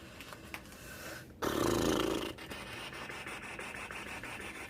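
Sheets of scrapbooking cardstock being handled and slid against each other: one loud rubbing slide about a second and a half in, lasting about a second, then faint rustling.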